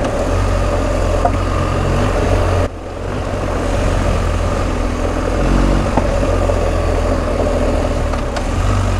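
BMW R1250 GS Adventure's boxer-twin engine running under way. Its sound drops briefly about three seconds in, then builds again.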